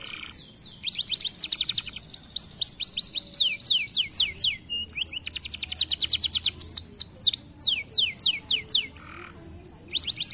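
Domestic canary singing a long, fast song of rapid trills and sweeping whistles, with a short break near the end before a few more notes.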